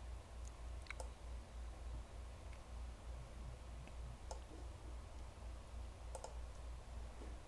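A few faint, sharp clicks, about one every two seconds, over a steady low hum.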